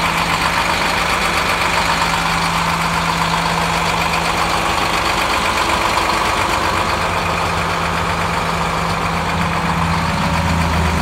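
Medium-duty truck diesel engine idling steadily with a constant low hum.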